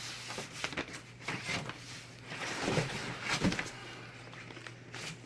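Papers and packaging being handled: irregular rustling with light clicks and knocks, the loudest about three seconds in.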